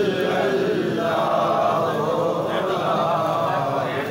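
A group of men chanting together in unison, their voices held and continuous.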